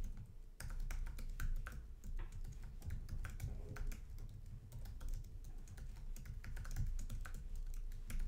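Typing on a computer keyboard: a quick, irregular run of key clicks as a long command is keyed in.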